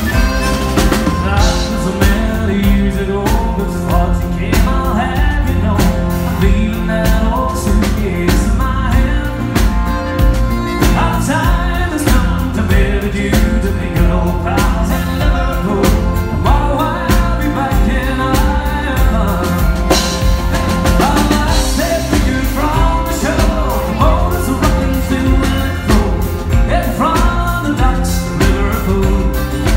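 Live band music: a man singing into a microphone while playing a piano accordion, backed by acoustic guitar over a steady beat.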